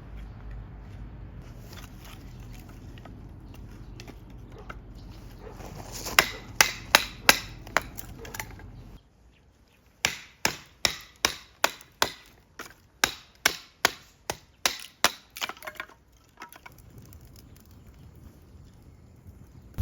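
Wood being chopped, likely firewood or kindling split with a hatchet for the fire pit. There are sharp, quick strikes in two runs, the second steady at about two to three strikes a second. A low steady hum underneath cuts off about nine seconds in.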